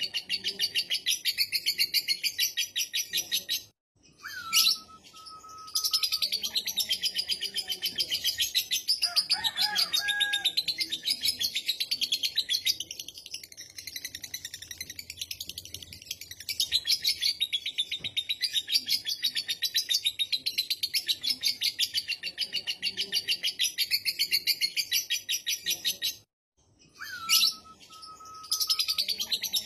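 Lovebird giving its long, fast, high-pitched chattering trill ("ngekek"), running on for many seconds. It breaks off twice, about 4 s in and again near the end, each time followed by one sharp whistled note that drops and holds before the chatter resumes.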